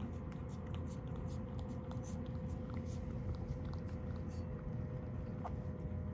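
A cat licking an emptied ceramic bowl clean of wet food: a run of small, irregular wet clicks of tongue against the bowl, over a steady low hum.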